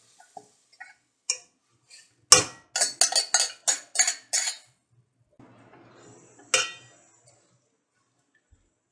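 Stainless-steel vessel clinking and knocking against a metal cooking pot as cooked green gram is tipped in. A few light clinks come first, then a sharp knock and a quick run of about eight metal taps, about four a second. A single clink of a ladle in the pot follows.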